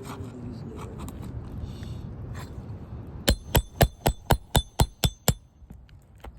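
Hammer striking a steel nail puller, eight sharp ringing metal-on-metal blows about four a second, to work out a roofing nail under an asphalt shingle tab. The blows come after about three seconds of low rustling and scraping as the tab is handled.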